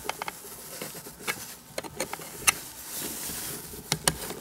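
Flat metal tool prying at the metal cigar lighter socket of a DeLorean DMC-12 console, working it loose from its plastic sleeve: scattered sharp metal-on-metal clicks, with a rougher scraping stretch about two and a half seconds in.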